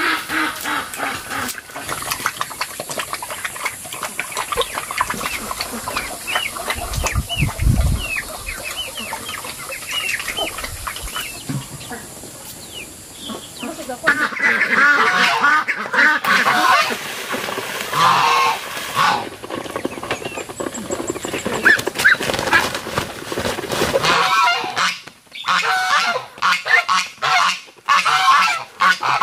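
A flock of ducks calling loudly, with a dense run of honking quacks from about halfway through and thinner, higher calls before that.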